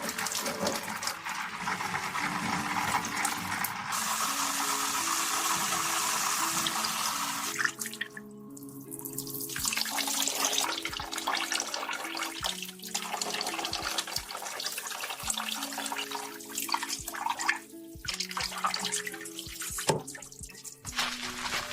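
Water running steadily, as in a hair rinse, for the first eight seconds or so, then cutting off. After that come patchy wet handling sounds with sharp clicks. Soft background music plays throughout.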